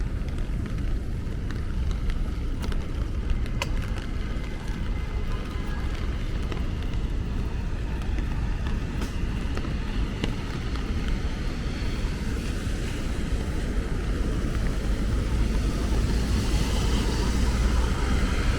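Rainy city street ambience: a steady low rumble of traffic and wind on the microphone, with a few scattered light ticks. A passing vehicle's hiss on the wet road swells near the end.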